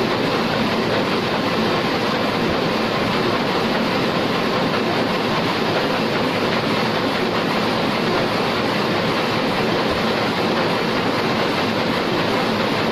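Heidelberg SORMZ two-colour sheet-fed offset printing press running, a steady mechanical noise of its cylinders, inking rollers and sheet feed at an even level throughout.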